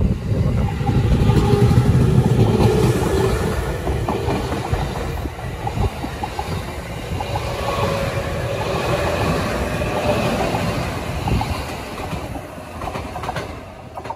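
JR East 209 series electric commuter train pulling out and passing close by, loudest in the first few seconds. Its wheels clatter over the rail joints, and a faint whine comes from its motors as it runs away down the line.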